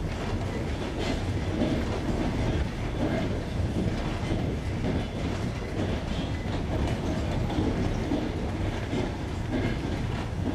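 Passenger train wheels running over jointed rails: a steady low rumble of the moving carriage with the clickety-clack of wheels crossing the rail joints, heard from aboard the train.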